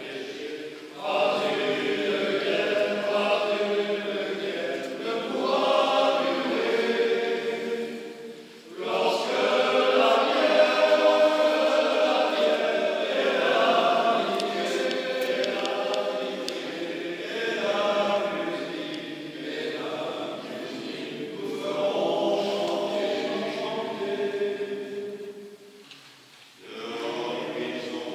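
Men's choir singing together in several voices, in long phrases broken by short pauses, in a church.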